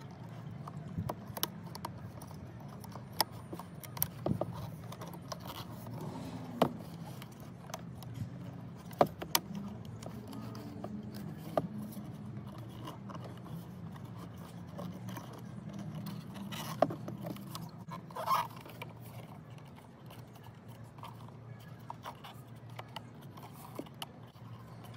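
Scattered sharp clicks and scrapes of plastic and rubber being handled as a new rubber grommet is worked onto a Mini Cooper door mirror's plastic base, over a steady low hum.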